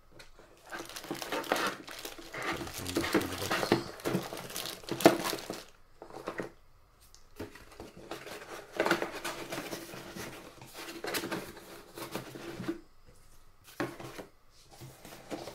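Plastic packaging crinkling and rustling as wrapped power cables and a power brick are handled in a cardboard box, in two spells of a few seconds each, with a sharp tap about five seconds in. Near the end come a few short handling sounds.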